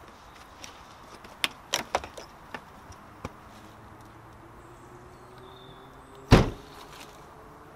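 Car hatchback tailgate slammed shut about six seconds in: one loud thump. Before it come a few light knocks and clicks.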